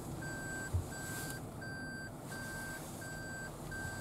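A car's in-cabin reverse-gear warning chime beeping steadily, about one and a half beeps a second, as the car backs up, over the low hum of the idling vehicle.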